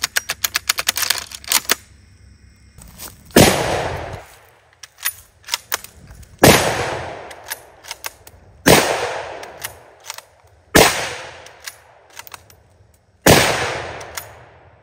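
Mosin-Nagant bolt-action rifle in 7.62×54R fired five times, about two to three seconds apart, each shot echoing away over about a second. Metallic clacks of the bolt being cycled come between the shots, and a quick run of metallic clicks near the start comes from loading it with a stripper clip and closing the bolt.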